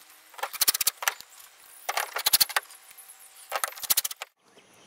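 Cordless impact driver hammering in three short bursts of about half a second each, running screws through a hatch ring into a plastic kayak hull. The screws are only run in, not yet tightened down.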